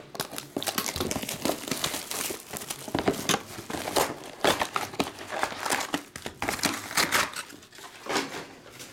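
Clear cellophane shrink wrap crinkling and tearing as it is stripped off a box of baseball cards: a dense run of irregular crackles that thins out near the end.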